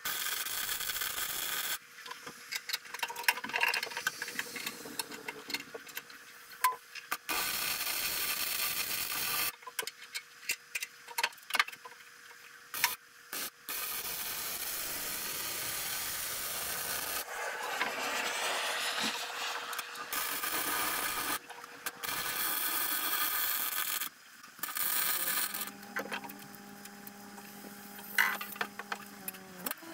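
Welding on a steel engine bed: stretches of crackling hiss a few seconds long that start and stop abruptly, with clicks and knocks in between.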